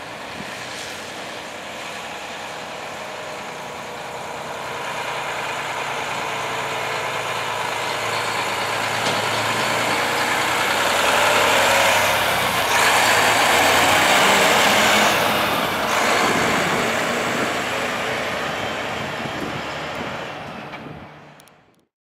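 Mack dump truck driving past, its diesel engine growing louder as it approaches, loudest a little past halfway, then fading as it goes away. The sound cuts off shortly before the end.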